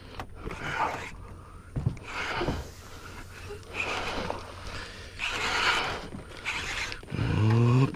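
A person breathing audibly close to the microphone, a short puff about every second, with a brief hummed voice sound near the end.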